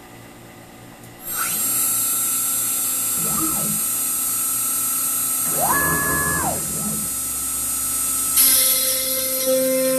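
CNC router spindle spinning up about a second in and then running with a steady high whine. Its stepper-driven axes make two whirs that rise and fall in pitch as the head moves. Near the end the sound gets louder and noisier as the bit goes down into the MDF blank and starts cutting.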